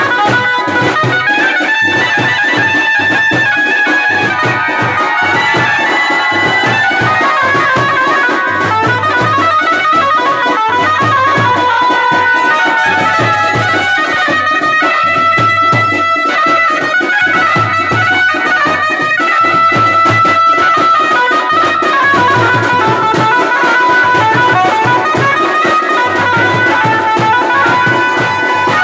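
Loud traditional music: a wind instrument plays a wavering melody with gliding notes over a steady drum beat.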